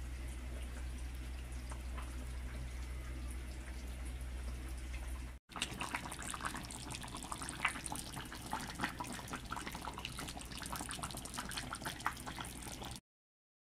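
A steady low hum, then after a short break a pot of fish and vegetables simmering: a dense crackle of small bubbles popping in the broth. The sound cuts off shortly before the end.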